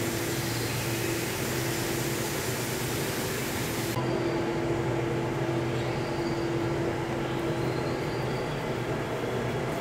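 Steady mechanical hum of greenhouse air-handling equipment, with a low drone and a higher held tone over a hiss. The hiss drops away suddenly about four seconds in.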